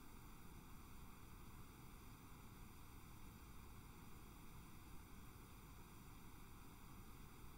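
Near silence: a faint, steady hiss of recording static.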